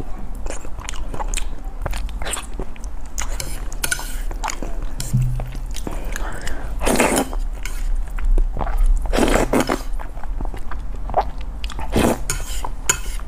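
Close-up eating sounds of a person biting, chewing and slurping thick noodles in a red sauce: wet mouth clicks throughout, with louder slurps about seven, nine and twelve seconds in.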